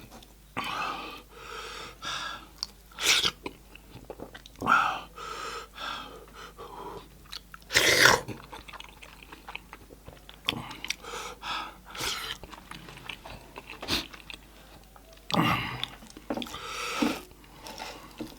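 Close-miked chewing and biting of a person eating goat meat and dhido, with wet mouth sounds and a few sharper, louder smacks or crunches.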